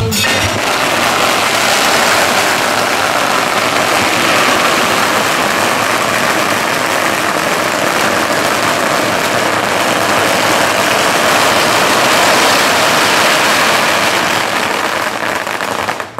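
A long string of firecrackers going off in a dense, continuous crackle.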